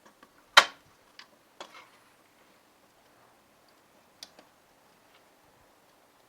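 A few sharp clicks and taps from small hand tools and parts handled on a workbench during circuit-board soldering, the loudest about half a second in.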